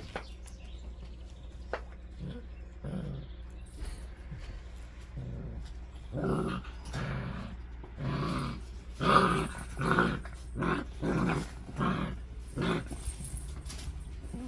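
Seven-week-old puppies growling in play as they wrestle: a run of about ten short, rough growls, roughly one a second, loudest about two-thirds of the way through.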